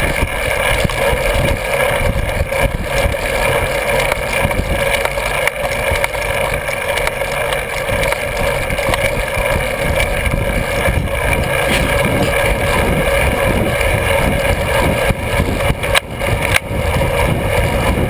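Steady wind rumble on the microphone and road noise from a camera on a bicycle climbing a hill, with a constant droning tone underneath and two brief knocks near the end.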